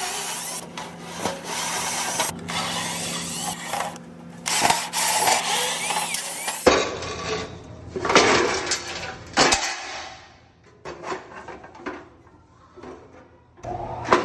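Hands-on work on an air conditioner's blower assembly: sheet metal and parts scraping and rubbing, with scattered knocks and clanks, as the blower wheel is worked loose on the motor shaft.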